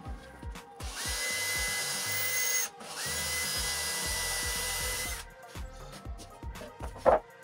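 Cordless drill boring a pilot hole for a screw down through a plywood platform into a birch branch, in two runs of about a second and a half and two seconds, the motor's whine rising as it spins up each time. A sharp knock near the end.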